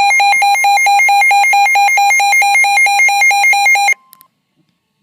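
Emergency Alert System attention tone: a loud electronic alarm tone pulsing about six times a second, cutting off suddenly about four seconds in.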